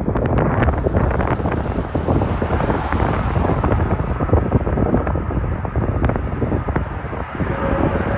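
Gusty wind buffeting the microphone, the loudest sound throughout. Near the end the steady whine of an approaching Airbus A330-243's Rolls-Royce Trent 700 jet engines begins to come through.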